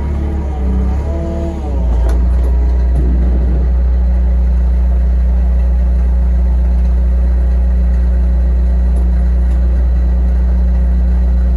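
An engine running, stepping up in speed a little under two seconds in and then holding steady at higher revs.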